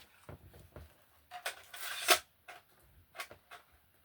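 Scattered plastic clicks and knocks with a brief rattle of handling in the middle, as a Sony printer's cartridge is worked in and out of its slot.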